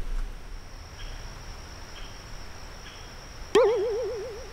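Insects chirring steadily in a forest, with a few faint short chirps. About three and a half seconds in, a loud wavering tone starts with a click, wobbles quickly up and down in pitch for about a second and fades away.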